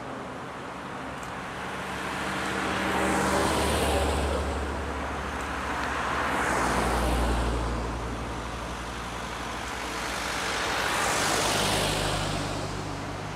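Classic cars driving past one after another on an asphalt road, three pass-bys in turn, each engine and tyre sound swelling as the car nears and fading as it goes. The pass-bys peak about 4, 7 and 11 seconds in.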